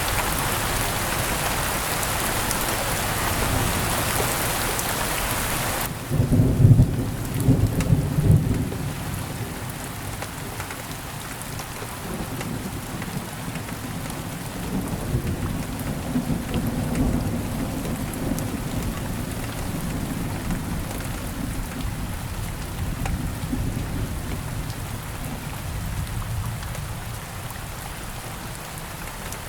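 Heavy rain hissing, which cuts off abruptly about six seconds in to lighter rain with loud thunder rumbling. The thunder keeps rolling on more quietly through the rest.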